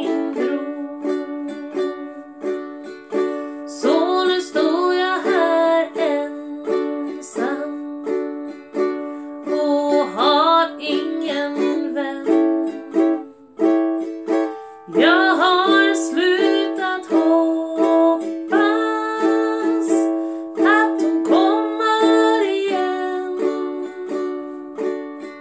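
Ukulele strummed in a slow, steady rhythm, with a woman's voice carrying the melody over it.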